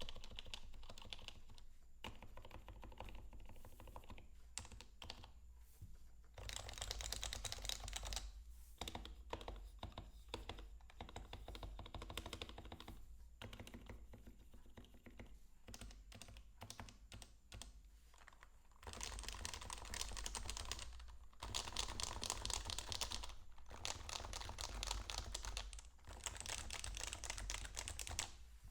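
Typing on an HHKB Pro Classic keyboard with Topre switches, PBT keycaps and lubed sliders and stabilizers: fast runs of keystrokes, densest in the last third, with sparser key presses between.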